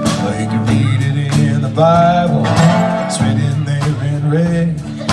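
Live band playing an instrumental break between sung lines: drum hits about twice a second over a bass line, with guitar.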